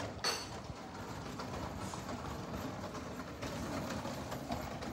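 Hard wheels of a rolling suitcase rattling over stone paving, getting louder in the last second or so as it passes close. A short clink comes just after the start.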